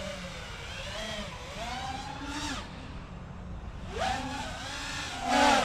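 FPV quadcopter's brushless motors and propellers whining, the pitch gliding up and down as the throttle changes, with louder surges about four seconds in and near the end.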